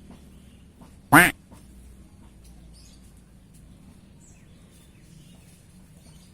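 A duck quacking once, short and loud, about a second in.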